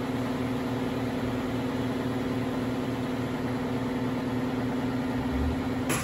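A loud electric shop machine running with a steady hum that drowns out speech, switched off near the end so that it stops abruptly.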